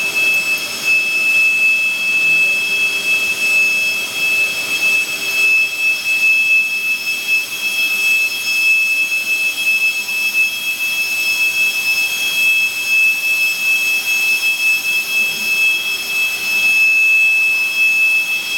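Elevator running in its shaft: a steady, high-pitched mechanical whine with two constant high tones over an even hiss.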